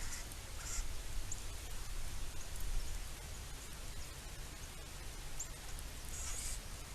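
Outdoor background noise with a steady low rumble, a few faint, short high ticks or chirps, and a brief high rustle about six seconds in.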